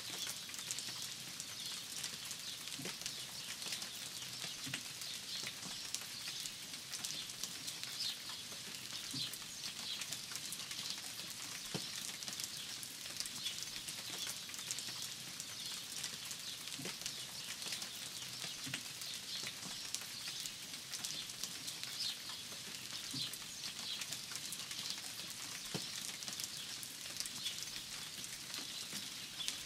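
Steady rain falling, with individual drops ticking close by, and birds chirping over it.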